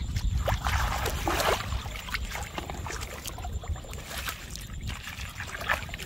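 Hands digging through soft, wet mud at the water's edge for mud clams, squelching and sloshing mud and muddy water in irregular bursts, busiest in the first couple of seconds.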